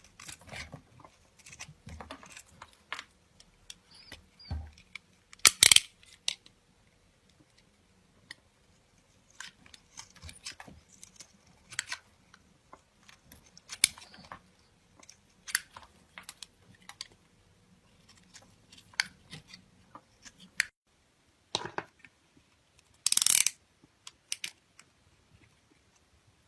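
Irregular close-up handling noises: scattered sharp clicks, taps and short scrapes, with two louder, longer rasping bursts, one about five seconds in and one near the end.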